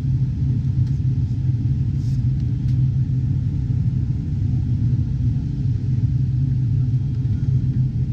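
Steady low drone of a turboprop airliner's engines heard inside the passenger cabin, with a couple of faint clicks about two seconds in.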